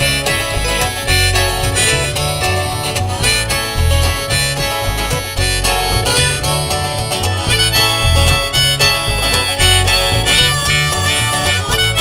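A folk band playing an instrumental break of a song: a lead melody over guitar, with a pulsing bass underneath and no singing.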